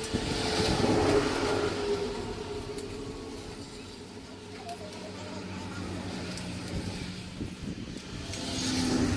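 A motor vehicle passing by, rising and fading about a second in, with a second vehicle swelling past near the end.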